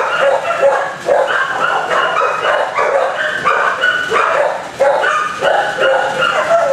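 Many kennelled shelter dogs barking nonstop, their barks overlapping with no pause.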